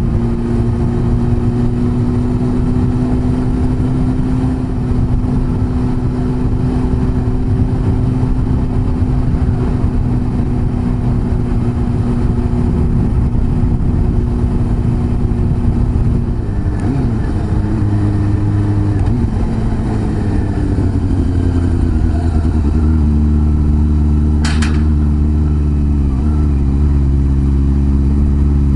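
Honda CB400 Super Four's inline-four engine running at a steady cruise; about two-thirds of the way in the engine note drops and shifts in several steps as the bike changes gear and slows, then holds a steady lower pitch.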